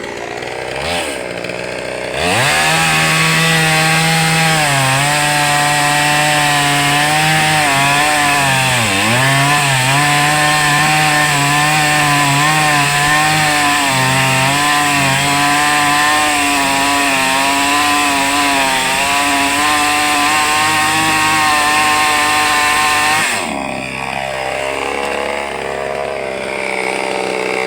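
Two-stroke chainsaw engine idling, then revved to full throttle about 2 s in and held high for some twenty seconds, wavering slightly with a brief dip partway through, before dropping back to idle near the end.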